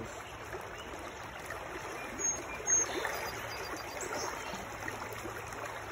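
Shallow, fast-flowing stream running steadily over riffles. Two brief high-pitched sounds stand out about two and three seconds in.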